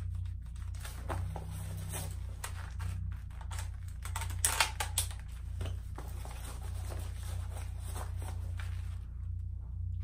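Handling clicks, rattles and clacks from a Howa Type 89 replica rifle and its magazine during a reload drill, with a louder cluster of clacks about halfway through, over a steady low hum.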